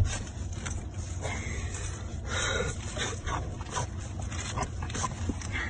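A dog's short, repeated vocal sounds, the strongest about halfway through.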